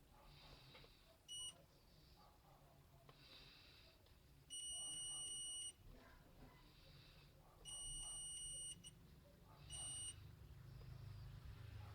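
Multimeter continuity beeper sounding four times, two short beeps and two held about a second each, as the probes touch the radio's USB board pads: a continuity test that finds the ground line.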